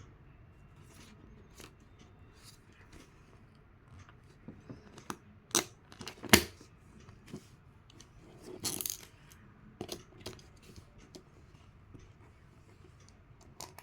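Small bolts and an acrylic case plate being handled: scattered light clicks and taps of metal on hard plastic as the bolts are set into their holes. Two sharper clicks come about midway, and a brief scraping rustle follows a few seconds later.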